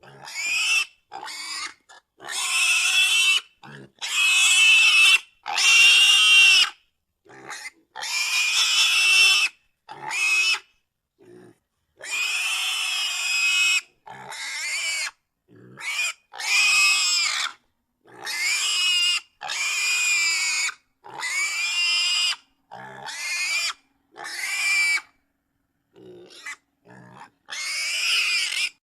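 Domestic pig squealing and screaming over and over: about twenty loud, high-pitched cries, each half a second to two seconds long, cut apart by abrupt silent gaps.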